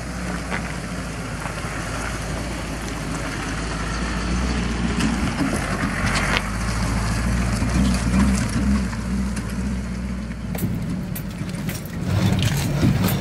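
Ford F-250 pickup truck driving slowly on a dirt trail: a steady engine hum with tyre and road noise, and sharp clicks and rattles in the last few seconds.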